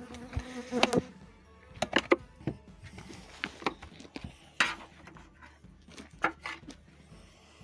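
Irregular light knocks and clicks, a dozen or so, scattered over a quiet background: handling noise as the beekeeper moves the camera around the wooden hives.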